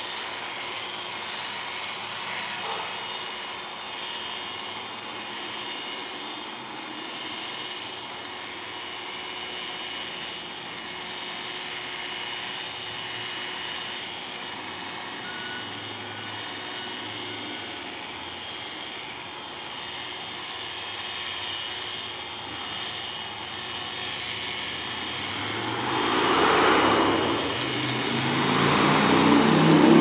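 Oster A5 electric dog clippers with a number 5 blade, running with a steady hum while clipping a Brittany's coat. Over the last few seconds a louder engine-like sound swells up and changes pitch.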